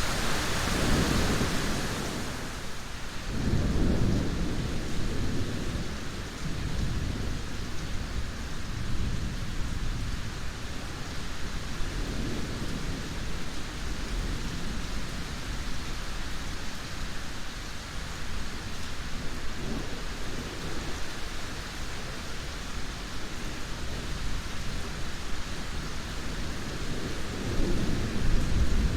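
Steady rain hiss with low rolls of thunder swelling and fading several times, the strongest a few seconds in and again near the end.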